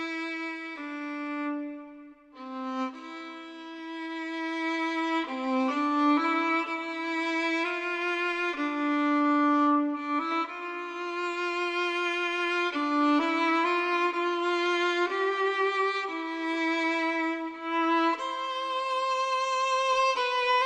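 Violin playing a melody of long held notes with vibrato.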